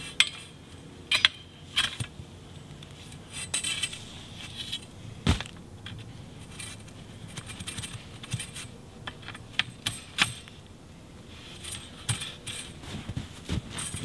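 Metal tent pole clinking and knocking as it is handled: a scatter of sharp metallic clinks, with one heavier knock about five seconds in.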